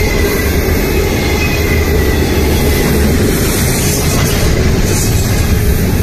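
Double-stack intermodal well cars loaded with containers rolling past close by: a loud, steady rumble of steel wheels on rail.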